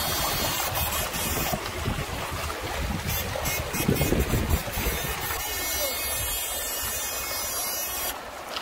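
Legs wading and splashing through shallow river water, over a steady low rushing noise.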